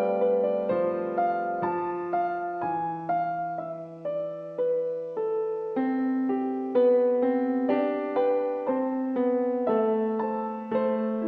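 Piano playing a slow, gentle piece, its notes struck and left to fade over sustained lower notes.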